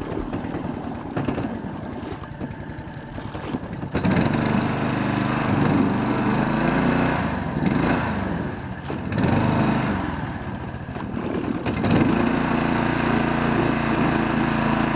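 Mud Buddy mud motor running on a canoe, first at low throttle, then opened up about four seconds in. Its revs sag and rise a few times through the middle and settle at a high, steady run from about twelve seconds in as it pushes the canoe through shallow, weed-choked water.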